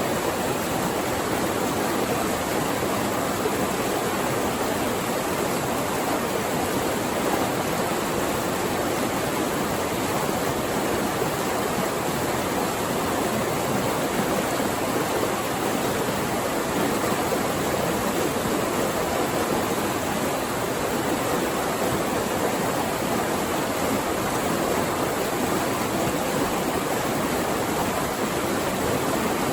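Flowing water rushing steadily: an even, unbroken wash with no distinct splashes or changes.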